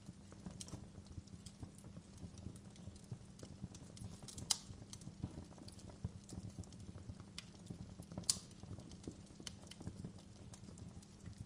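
Fire crackling: a steady low rumble with irregular snaps and pops, two sharper pops a little before halfway and about three quarters of the way through.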